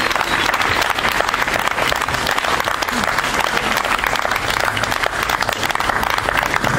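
Audience applauding, a dense steady clapping from a crowd.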